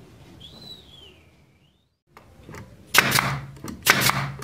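Pneumatic nailer firing into a pine frame: two sharp shots about a second apart, each followed by a short hiss, starting about three seconds in.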